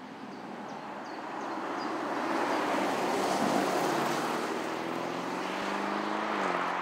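2021 Porsche Cayenne GTS with its twin-turbo V8 driving past with tyre and engine noise, then accelerating away. The engine note rises steadily, then steps down once near the end at a gear change.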